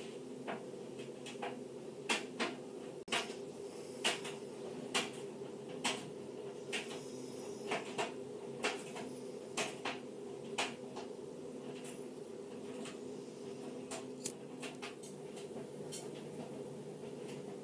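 Light clicks and knocks, about one a second for several seconds and then fewer and fainter, from hard crossbow bolt parts and tools being handled at a work surface, over a steady low hum.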